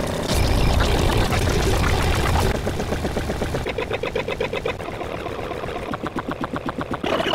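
A dense jumble of many overlapping video soundtracks playing at once, with an engine-like rapid pulsing in two stretches in the second half.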